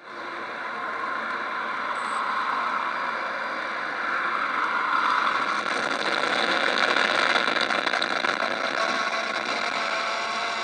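DJI Phantom 2 quadcopter's motors and propellers running as it lifts off and climbs: a steady buzzing whine that gets louder about four seconds in.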